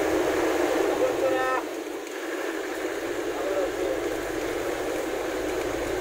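Vehicle cabin noise on a wet road: a steady rumble and hiss, with a brief pitched tone about a second in. The low rumble fades for a moment just after the tone and then comes back.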